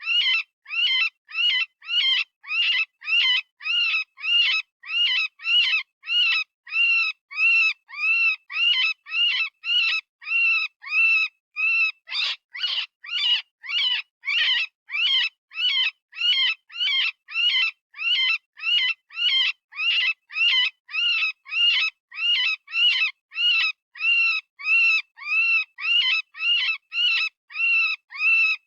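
Software-generated rabbit distress call, as used for predator calling: a high, piercing squeal repeated evenly about twice a second. Each cry rises and falls in pitch, with short gaps of silence between cries.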